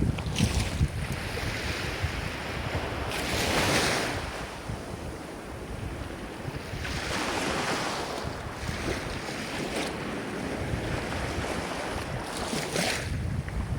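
Ocean waves breaking and washing onto the shore, surging several times, with a steady low rumble of wind on the microphone underneath.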